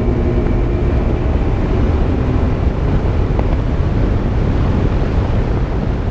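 Bass boat running across the water: steady wind buffeting the microphone over the low drone of the outboard engine and water rushing past the hull.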